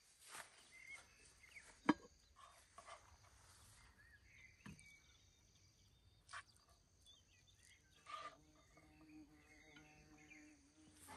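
Quiet outdoor ambience with scattered faint clicks and knocks, one sharper click about two seconds in, and a few faint chirps.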